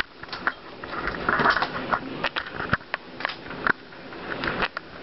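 Irregular sharp clicks and taps with a short rustle about a second and a half in: handling noise on the jar and camera.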